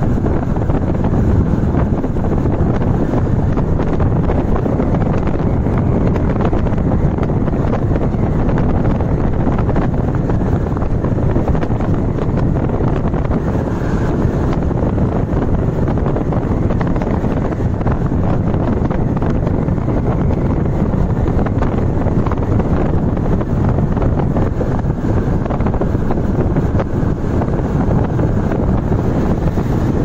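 Steady wind rush over the microphone with the road and engine noise of a moving vehicle.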